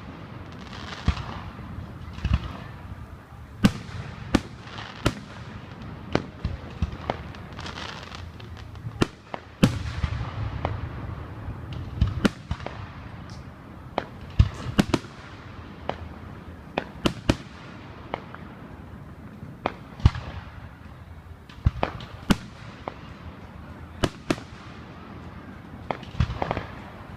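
Fireworks display: many sharp bangs of bursting fireworks at irregular intervals, sometimes two or three in quick succession, with a hiss between bursts.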